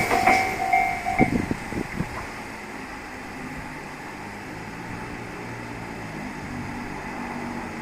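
Japanese level-crossing warning bell ringing in quick pulses, then stopping about a second in, as a Tobu 8000 series two-car train passes; a few wheel knocks on the rails follow as the train's sound fades away. A low steady hum remains afterwards.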